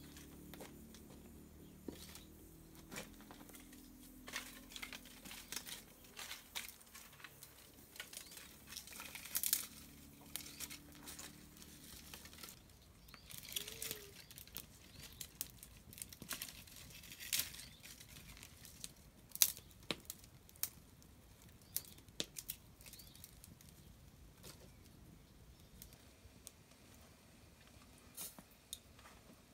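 Dry branches and twigs snapping and cracking irregularly as they are broken up by hand for firewood, with several louder sharp snaps. A faint low steady hum runs under the first twelve seconds or so, then stops.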